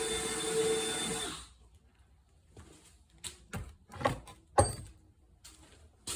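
Power drill running steadily as it enlarges a hole for a fuel-line fitting, then stopping about a second and a half in. A few sharp clicks and knocks follow.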